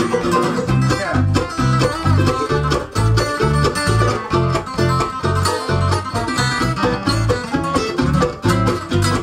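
Live bluegrass band playing an up-tempo tune on banjo, mandolin, acoustic guitar and electric bass, the bass keeping a steady beat of about two notes a second.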